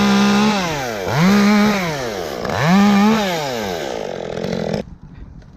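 Chainsaw running at full throttle, its pitch falling as the throttle is let off and rising back up, twice. It cuts off suddenly near the end.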